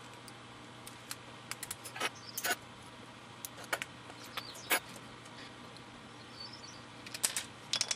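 Scattered small clicks and light scrapes as a white plastic pill-camera capsule shell and its tiny circuit-board assembly are handled between the fingers, in short clusters, over a faint steady low hum.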